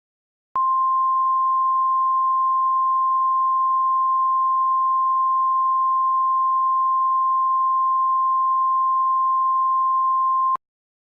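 Emergency alert attention tone: a single steady high beep held for about ten seconds, starting and stopping abruptly.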